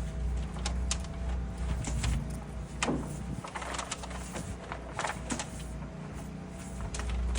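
Backhoe's diesel engine running steadily, with scattered metallic clanks and knocks from the digging.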